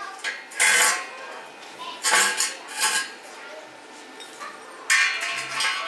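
Metal parts and tools clinking and scraping in several short bursts, as parts are handled during a motorbike rebuild.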